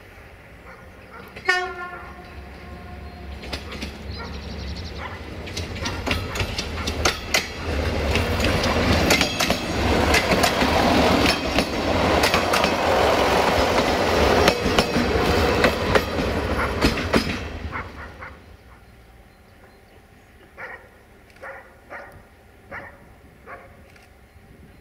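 TFC DH2 diesel railcar sounds one short horn blast about a second and a half in. It then approaches and runs past close by, its wheels clacking over the rail joints, and fades away after about 17 seconds.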